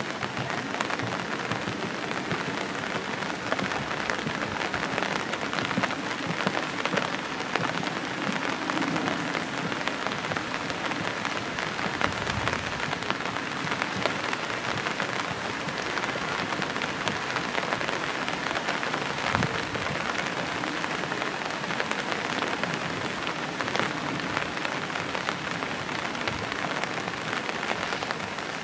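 Steady rain falling: a continuous hiss full of small ticks of drops.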